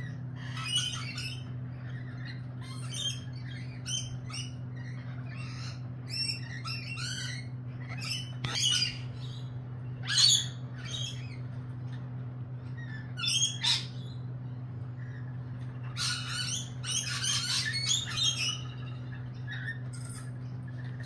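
Lorikeets giving short, shrill screeching calls again and again, the loudest about ten seconds in and a busy run of calls a few seconds from the end, over a steady low hum.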